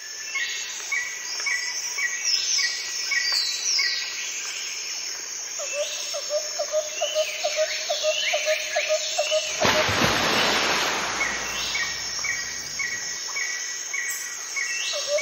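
Forest birds calling: a steady series of short chirps about two a second, high falling whistles, and a quick run of lower notes in the middle. From about ten seconds in, a loud even rushing hiss covers the calls for several seconds.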